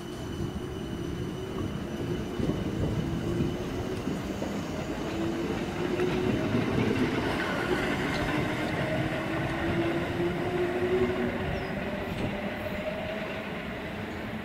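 Class 455 electric multiple unit pulling away, its traction motors whining with a slowly rising pitch as it gathers speed over the rumble of wheels on rail. It is loudest about halfway through, then fades as it draws away.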